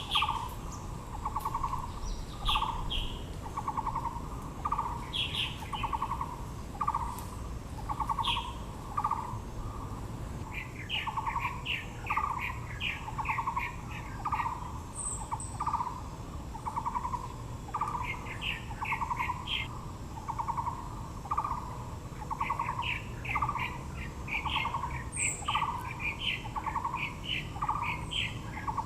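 Birds calling: one bird repeats a low, pulsing note about once every 0.7 seconds without a break. Other birds add quick runs of higher chirps and a couple of brief, very high chirps.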